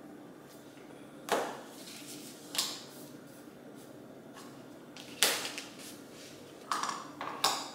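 Magnets and small plastic pieces clicking onto a stainless-steel refrigerator door: about five sharp snaps, each with a short metallic ring.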